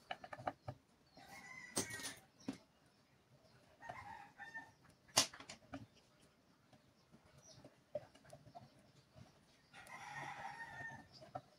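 Light clicks and taps of a small metal pin being worked into a wooden block. A bird calls in the background three times, the longest call near the end.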